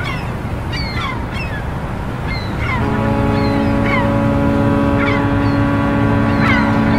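A ship's horn sounds one long, steady blast starting about three seconds in, over a continuous low rumble. Short, falling bird calls repeat throughout.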